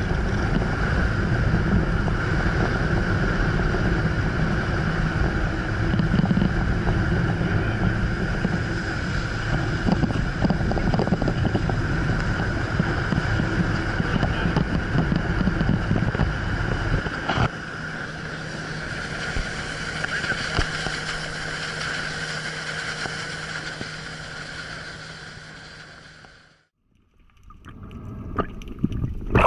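Motorboat engine running under way, steady and loud; about seventeen seconds in it settles to a lower, quieter note as the throttle eases, then fades and cuts out near the end.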